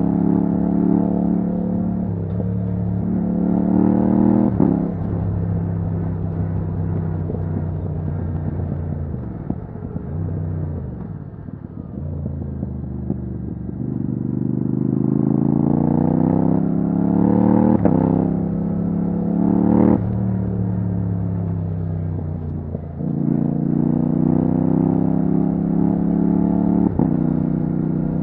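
Yamaha MT-07's parallel-twin engine through a titanium Akrapovic exhaust with the dB killer removed, ridden hard. The revs climb and drop off sharply at quick upshifts about four and a half, eighteen and twenty seconds in, and slide down slowly under engine braking in between.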